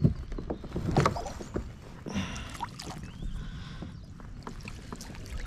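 Knocks and water slapping against a plastic fishing kayak while a hooked fish is played up alongside it, with a sharp knock right at the start and a louder bump about a second in.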